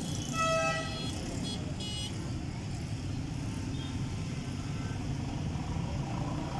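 Steady road-traffic rumble with a vehicle horn honking briefly about half a second in, then a few short, high-pitched toots around two seconds in.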